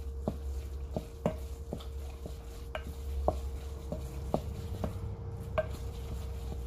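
Wooden spoon stirring a thick ground-pork sausage mixture in a glass mixing bowl, knocking against the glass about twice a second, over a steady low hum.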